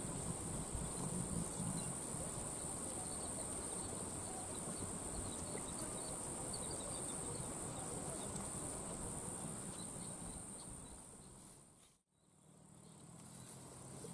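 Steady, high-pitched chirring of insects over a low, even background noise. The sound drops out almost completely for a moment about twelve seconds in, then returns.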